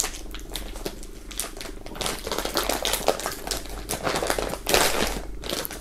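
Thin black plastic mailer bag crinkling and crackling in quick, irregular bursts as hands pull and twist at its firmly glued seal, trying to tear it open by hand. It grows louder about two seconds in.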